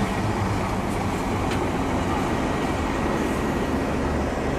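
Fire engines driving past, their heavy engines running with a steady low drone.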